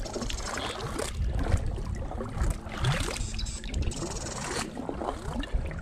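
Creek water sloshing and lapping around a person wading waist-deep, with scattered small splashes and a low rumbling underneath.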